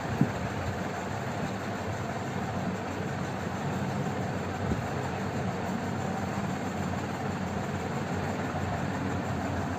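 Steady background noise with a sharp click just after the start and another near the middle.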